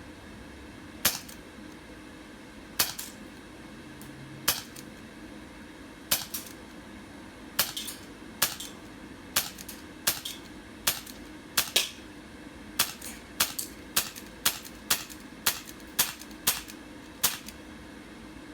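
HK USP CO2 airsoft pistol firing about twenty single shots, each a sharp crack with a brief rattle from the gas blowback. The shots come a second and a half apart at first and quicken to about two a second in the second half.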